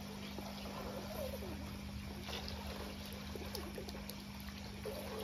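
Steady trickling, pouring water at the pond, over a low steady hum, with faint voices in the distance.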